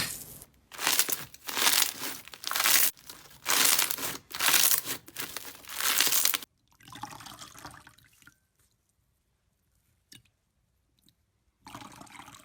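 Slime being squeezed and pressed by hand, close-miked: about six loud, noisy squishes in quick succession, then softer handling that dies away into quiet, and one more soft squish near the end.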